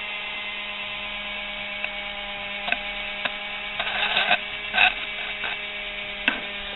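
Kitchen mixer's brushed motor, field coil wired in parallel, running steadily on about 19 volts DC with an even whine. From a little under three seconds in, a rod pressed against its spinning gear wheel makes a series of short scrapes and clicks.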